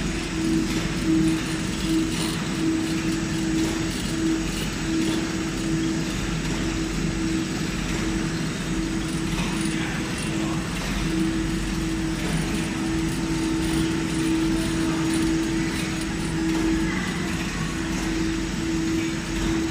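Automatic Malabar (lachha) paratha machine running: its multi-tier conveyor belts and rollers make a steady mechanical hum with one held tone that pulses slightly.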